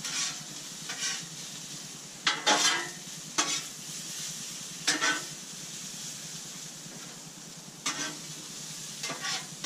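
Potatoes, peppers and onions sizzling steadily on a hot Blackstone propane griddle, with a metal spatula scraping and turning them across the steel top every second or two.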